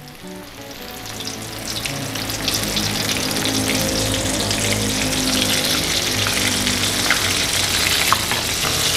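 Flour-coated chicken breast pieces frying in hot oil in a wok, left unstirred to brown on one side. The sizzling and crackling swells over the first couple of seconds, then holds steady.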